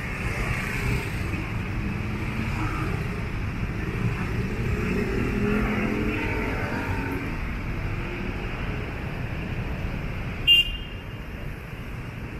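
City street traffic: a steady rumble of cars going by, with one vehicle's engine growing louder and fading away in the middle. A short high beep sounds near the end.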